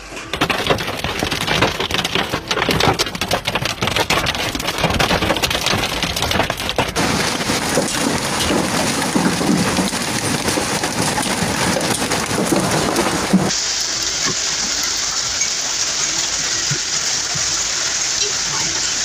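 Hailstorm: hailstones and heavy rain pelting the ground and surrounding surfaces, a dense patter thick with sharp impact clicks for the first several seconds. The sound changes abruptly twice, ending in a steadier hiss for the last five seconds or so.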